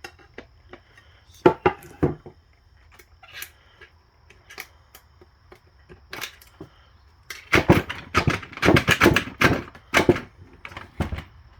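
Metal-on-metal knocks and clinks as a tight band anchor is knocked loose inside a 4L65E automatic transmission case: two sharp knocks about a second and a half and two seconds in, then a quick run of blows from about seven and a half to ten seconds and one more near the end.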